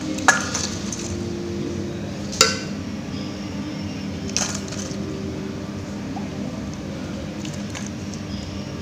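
A steel ladle clinks against a stainless steel plate as pea gravy is spooned over broken pooris: two sharp ringing clinks, about a third of a second and two and a half seconds in, and a softer one around four and a half seconds, over a steady low hum.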